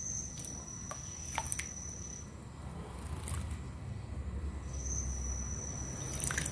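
A steady high, insect-like trill that stops for a couple of seconds in the middle and then resumes, with a few short sharp chirps or ticks over a low background rumble.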